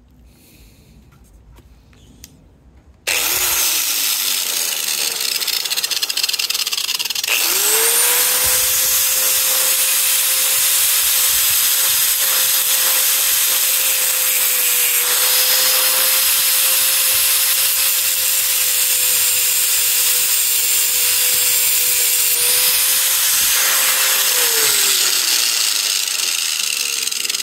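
Angle grinder with a metal-cutting disc cutting the head off a screw. It starts suddenly about three seconds in and runs steadily with a loud grinding hiss. The motor's pitch falls away near the end.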